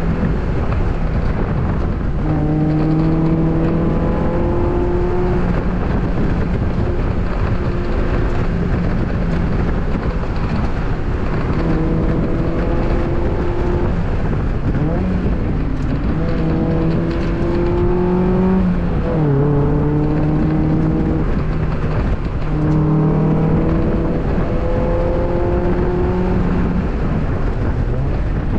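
2002 Mazda Miata's 1.8-litre four-cylinder engine being driven hard: its pitch climbs for a few seconds at a time, then drops back, over and over, as the car accelerates, shifts and slows.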